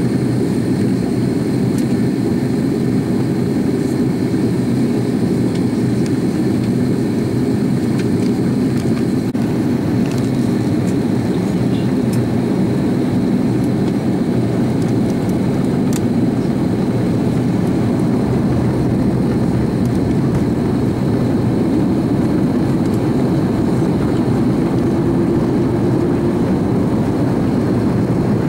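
Steady in-flight cabin noise of an Airbus A330-300: an even, low drone from its General Electric CF6 turbofan engines and the airflow over the fuselage, heard from a window seat.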